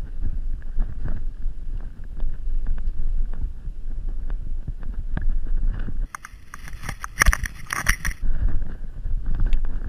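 Mountain bike riding fast down a rough dirt trail: wind rumbling on the microphone with constant rattles and knocks from the bike over the ground. Shortly after six seconds the rumble drops and for about two seconds a harsher, hissing rattle comes in before the ride noise returns.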